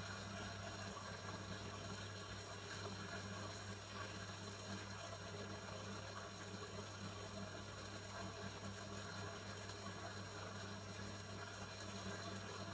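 Washing machine running: a steady low hum with an even wash of water noise over it.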